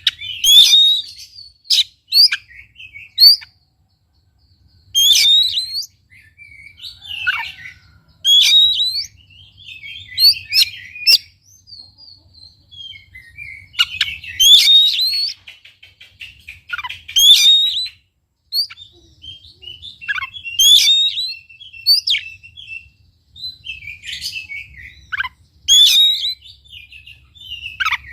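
Oriental magpie-robin (kacer) singing: loud, varied phrases of sliding whistled notes and quick note runs, one phrase every two to three seconds with short pauses between.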